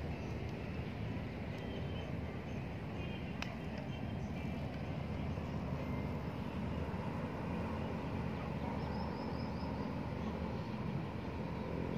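Outdoor background noise: a steady low rumble, with a few faint high chirps.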